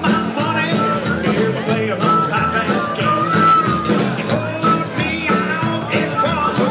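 Live band playing an instrumental passage: a harmonica lead with long, bending notes over electric guitar, upright bass and drums keeping a steady beat.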